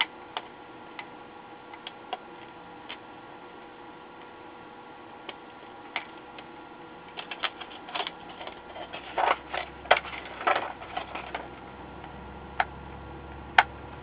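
Sharp plastic clicks as push-in plastic rivets are squeezed and poked back through a circuit board, then a busier run of clacks and rattles about halfway through as the board is turned over and its plastic insulator sheet is pulled off.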